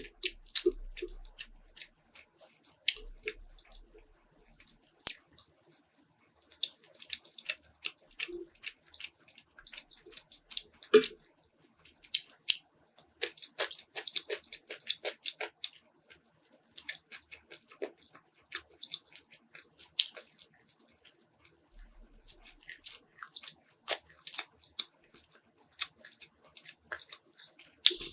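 A person chewing and biting food close to the microphone, heard as irregular crunches and wet mouth clicks while eating spicy instant noodles and fried pork.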